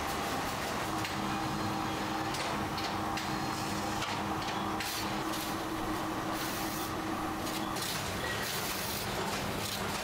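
Factory workshop noise: a steady machine hum with scattered clicks and knocks from work on the production line.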